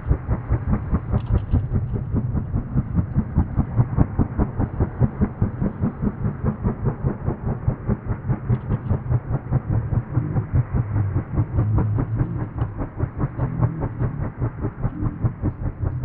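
WAH-64D Apache attack helicopter's rotor beating in a steady, rapid rhythm, about four pulses a second, over the low rumble of its engines.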